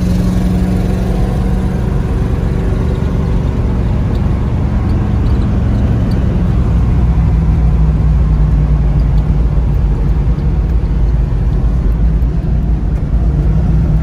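Pontiac Firebird's 455 V8 running steadily, its low rumble growing a little heavier about six seconds in.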